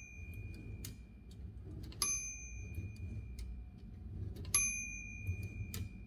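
The steel dome bell of a 1919 Oliver No. 9 typewriter is struck twice, about two and a half seconds apart, and each ring dies away over a second or more. This is the bell that warns the typist of the end of the line. Light mechanical clicks come from the carriage and trip lever between the rings.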